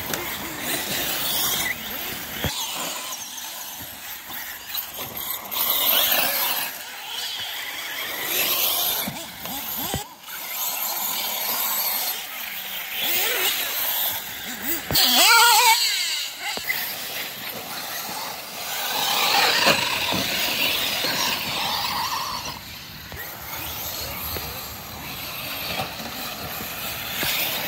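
Radio-controlled truggy running around the track: a high-pitched motor whine that rises and falls as it accelerates and slows, loudest about fifteen seconds in.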